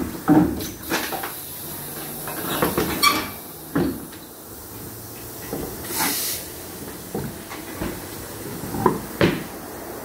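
Tire-shop work noise: scattered knocks and clanks of wheels and tools being handled, with a short burst of hissing air about six seconds in.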